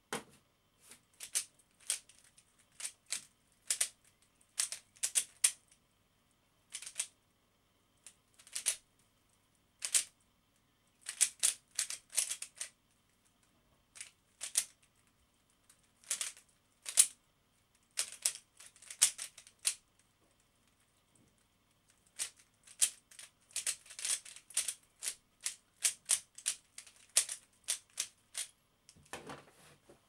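Stickerless Dayan GuHong V1 speed cube being turned fast during a solve: rapid clicking and clacking of plastic layers in quick bursts, separated by short pauses. Near the end there is a duller knock as the cube is set down on the desk.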